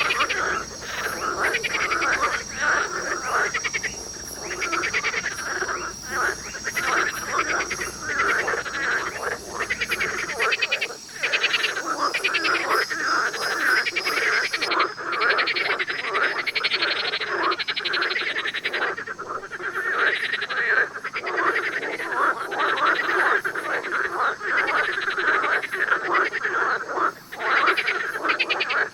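A dense chorus of many frogs calling at once, rapid overlapping croaks and trills that never pause. About ten seconds in, a faint low hum beneath the chorus drops away, as if one recording gives way to another.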